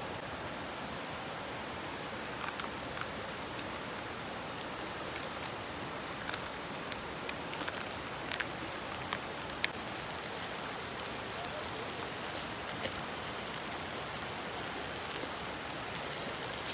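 Curry paste frying in hot oil in a clay pot over a wood fire, starting to sizzle about ten seconds in and growing louder, with scattered crackles from the fire. Underneath is the steady rush of a river.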